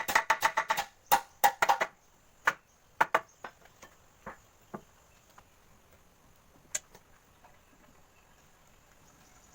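A rapid series of sharp knocks, about seven a second for the first two seconds, then a few scattered ones that die out about five seconds in, with one more near seven seconds. A faint steady high whine runs underneath.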